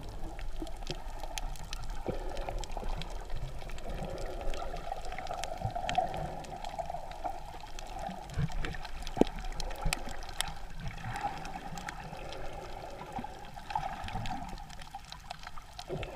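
Sea heard underwater through a submerged camera: a muffled, steady wash of water with many scattered small clicks and crackles.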